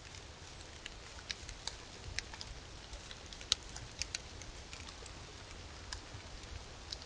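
Outdoor ambience picked up by a trail camera's microphone: a steady hiss and low rumble, with light ticks and patters scattered at irregular intervals and one sharper tick about halfway through.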